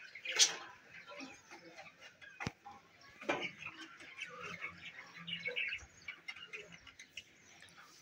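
Flock of budgerigars chirping and chattering in short, overlapping calls, with one louder call about half a second in and a sharp click about two and a half seconds in.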